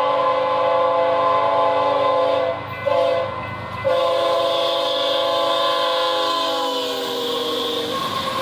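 Union Pacific freight locomotive's air horn sounding a loud multi-note chord. A blast already under way stops about two and a half seconds in, a short blast follows, then a long blast whose pitch slides down as the lead locomotive passes close by. Near the end the rumble of the passing locomotives takes over. The long–short–long ending is the close of a grade-crossing signal.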